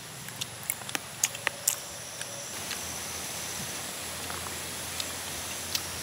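A person eating by hand: short wet clicks and smacks of chewing and lip-smacking, several in the first two seconds and a couple more near the end, over a steady outdoor background hiss with a faint high whine.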